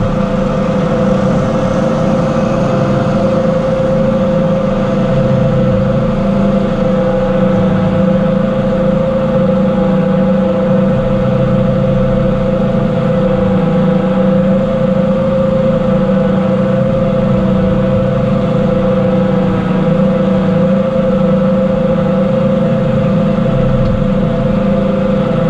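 Tractor-driven vertical-auger feed mixer wagon running steadily, its auger mixing a load of forage. A constant engine drone with one steady whine held over it.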